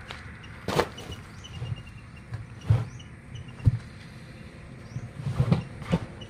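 A heavy rubber inner tube being pulled out of a truck tyre: several dull thumps and rubbing noises as rubber drags and flops against the tyre.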